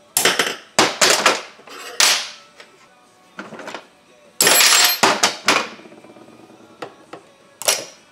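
Irregular metal-on-metal clanks and knocks from a wrench and hand tools on the steel nuts of a chainsaw bar stud, with a dense run of hits about four and a half seconds in. The stud, with two nuts locked on it, is being set into a freshly installed M8 helicoil thread repair in the saw's crankcase.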